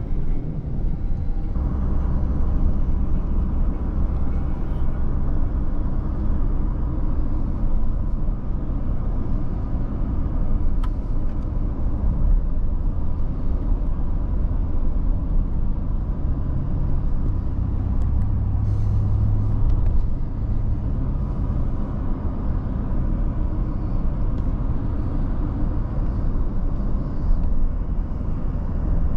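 A moving vehicle heard from inside its cabin: steady engine and road noise, a continuous low drone.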